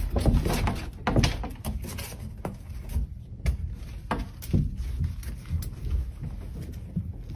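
Interior door being opened, with scattered knocks and rustling as kittens push through the gap.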